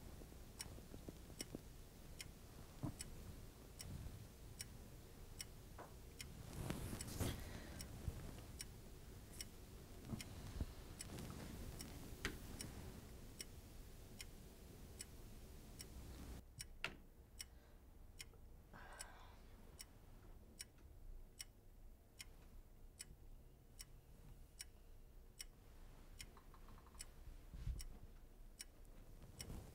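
Clock ticking steadily and faintly, evenly spaced ticks.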